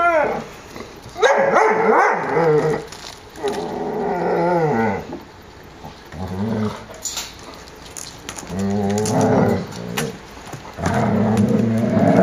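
Airedale Terrier puppies vocalising at play: high whines and yelps that slide up and down in pitch in the first few seconds, then lower growling sounds about halfway through and again near the end.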